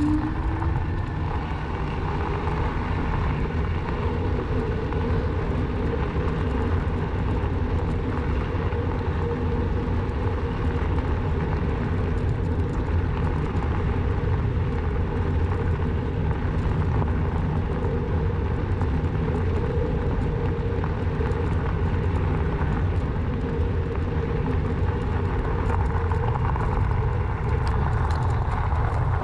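Steady rush of wind and rolling rumble from riding a Rawbike electric bike, heaviest in the low end, with a faint steady hum running under it.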